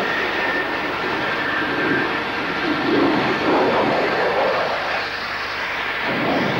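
Jet engines of a Northrop B-2 bomber, its General Electric F118 turbofans, running on the ground: a steady high whine over a rushing roar, swelling a little about halfway through.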